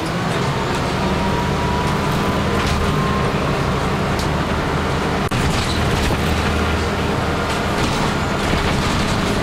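A moving bus heard from inside its cabin: a steady low engine drone and tyre hiss on a wet road, with light rattles and clicks scattered through.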